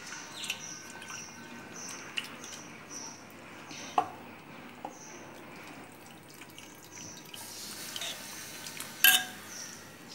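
Wet squelching, sloshing and dripping as a hand squeezes tamarind pulp into a pot of broth, with a few light knocks and a sharper one near the end.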